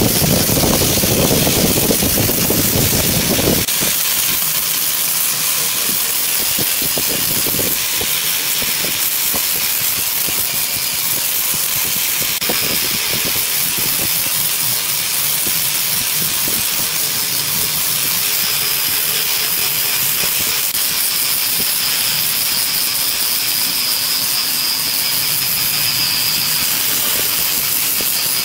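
Angle grinder fitted with a sanding disc running steadily as it sands a wooden marquetry panel, giving a continuous high hiss. The sound is heavier and fuller for the first few seconds, then thins to mostly hiss.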